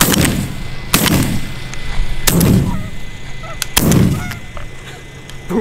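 Four shotgun shots fired at geese overhead, spaced a second or so apart, each with an echoing tail. Faint goose honks are heard between the shots.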